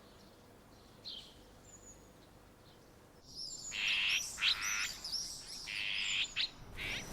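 Small songbirds chirping: a few faint, scattered calls, then about three seconds in many birds chirping and twittering together, louder and overlapping, until shortly before the end.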